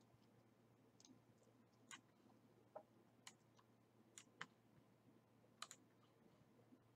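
Faint computer mouse clicks, about eight at irregular intervals, including a quick double click about five and a half seconds in, as a heading is selected and a style applied in a word processor.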